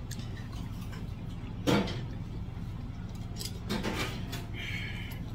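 Metal chopsticks and stainless-steel bowls clinking and knocking at a meal table, with one sharp knock, the loudest sound, a little under two seconds in and a brief ringing tone near the end. A steady low hum runs underneath.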